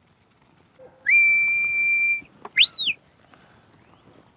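A shepherd's whistle blown as a herding command: one long note that slides up and then holds steady, followed by a short note that rises and falls. It is the low-starting 'way to me' whistle, which sends the sheepdog counterclockwise around the flock.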